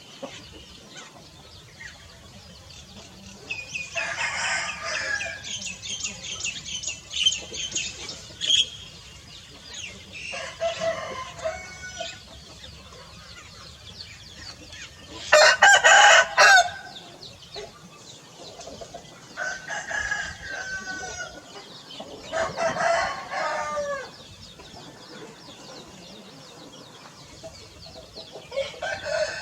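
Domestic roosters crowing several times, with the loudest crow, lasting over a second, about halfway through.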